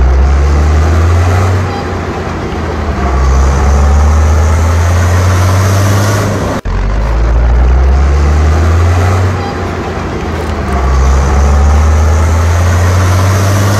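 Off-road vehicle engine running and revving, its pitch and loudness swelling and easing. The same recording cuts off abruptly about six and a half seconds in and plays again.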